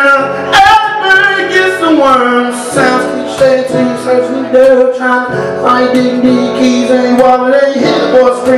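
A man singing long held notes to his own strummed acoustic guitar.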